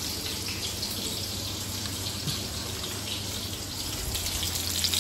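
Sliced onions and green chillies sizzling in hot oil in a wok: a steady hiss, with a low steady hum underneath.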